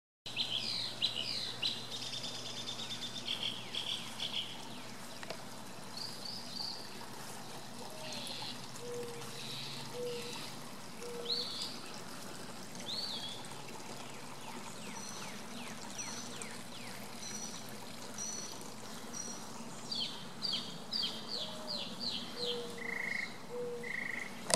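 Several birds singing: a mix of high chirps, quick downward-slurred notes and short repeated whistles. Twice there is a lower call of about four notes, the first one rising.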